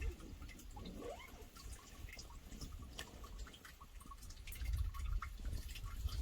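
Filtered water trickling and dripping from a gravity-bag water filter into a container, with scattered drips and a pitch rising about a second in as the container fills. The flow is slow.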